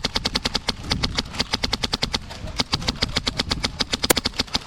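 Airsoft guns firing on full auto: a rapid, continuous stream of sharp snaps, about thirteen a second, with a single louder crack about four seconds in.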